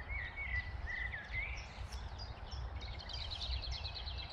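Songbirds singing: a few whistled notes, then a fast, high, trilling run of chirps in the second half, over a steady low rumble of wind.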